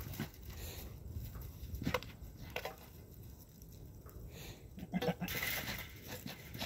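A goat bleats briefly about five seconds in. A short sharp knock comes about two seconds in, among faint rustling.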